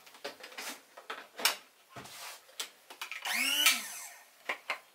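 Clicks and knocks as the electric blade coffee grinder is handled. About three and a half seconds in comes a short whine that rises then falls, its motor briefly spinning up and winding down.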